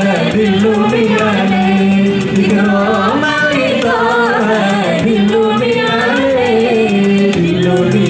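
A woman singing an Islamic devotional sholawat into a microphone over amplified musical accompaniment. A steady held low note runs under her bending melody, with a quick even ticking beat on top.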